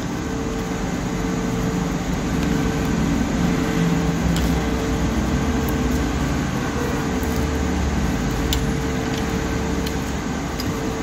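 Steady mechanical hum with a constant mid-pitched tone, and a few faint clicks.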